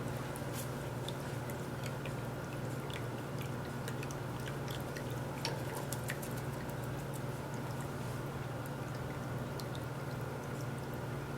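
PetAcc electric cat water fountain running: a steady low pump hum, with water trickling from the flower top and small irregular drips and splashes.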